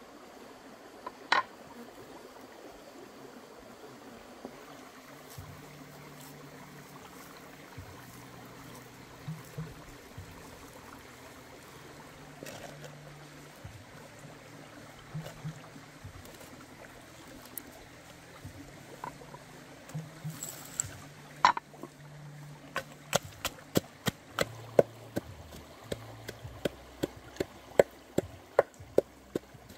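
Stream water trickling steadily over rocks, with a sharp knock about a second in. From about two-thirds of the way through, a regular run of sharp knocks comes about two a second.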